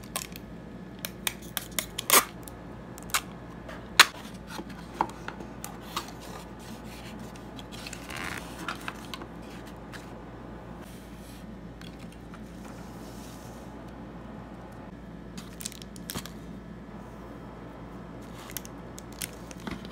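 Hands packing an order at a table: a run of sharp clicks and knocks from scissors and objects being handled in the first six seconds, a brief paper rustle about eight seconds in, then quieter handling of a cardboard box with a few soft taps.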